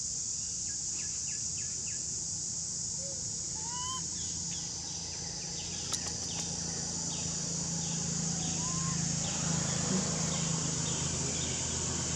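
Outdoor ambience of a steady high insect drone with birds calling over it: a few short rising whistles, and a run of quick falling chirps repeating about twice a second in the second half. A low steady hum runs underneath.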